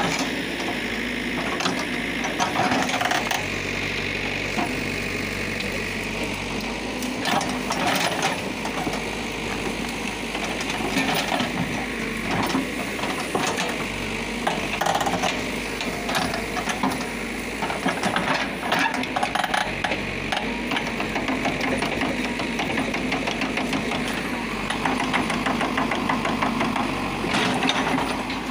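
Caterpillar backhoe loader's diesel engine running steadily under hydraulic load while the backhoe bucket digs into soil and roots, with frequent clattering and knocks throughout.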